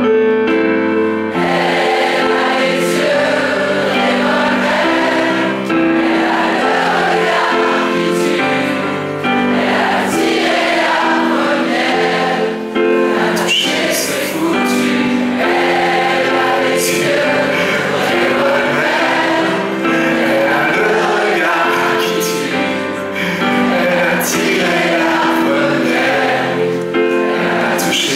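Live piano accompaniment with several voices singing a French pop song.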